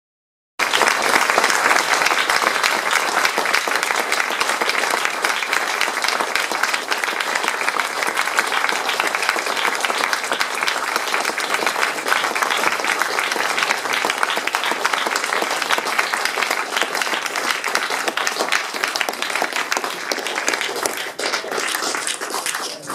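Theatre audience applauding: the dense, steady clapping of many hands. It starts suddenly just after the start and dies away near the end.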